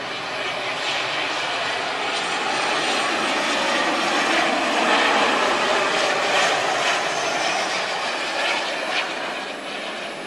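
Jet airliner landing, its engines making a steady rushing noise that grows louder to about halfway through and then eases off as the aircraft rolls out on the runway.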